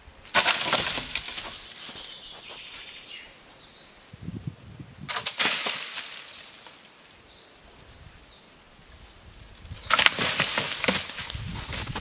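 Dry leaf litter and dead branches rustling and crackling in three bursts of a second or two each, as a person tramps through the forest floor and handles fallen branches.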